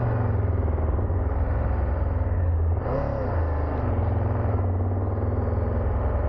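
2022 Triumph Tiger 1200's three-cylinder engine running at low revs as the bike pulls away slowly in a low gear, with a short rise and fall in pitch about three seconds in.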